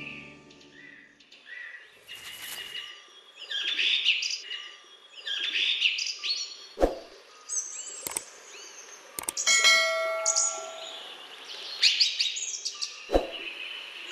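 Bird chirps and short trills, with a few sharp clicks: three about a second apart past the middle and one more near the end. A brief ringing tone sounds near the middle.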